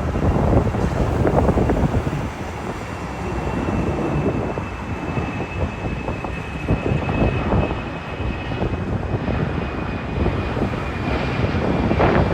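Jet airliner engines: a loud, uneven rumble with a faint high whine that slowly falls in pitch as the aircraft moves past.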